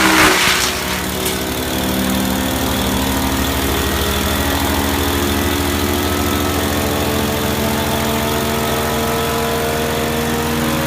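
Wood chipper's Briggs & Stratton engine running steadily at an even pitch, after a louder, hissing burst dies away in the first second.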